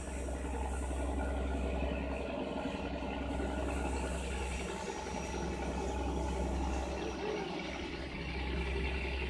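A ferry's engine running steadily, with wind buffeting the microphone.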